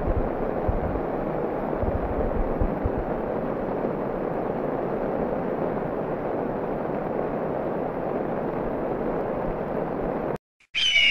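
Muddy flash-flood torrent after a cloudburst rushing steadily downhill with mud and stones, with a few low thumps in the first few seconds. It cuts off abruptly near the end, and a bright, high tone begins just after.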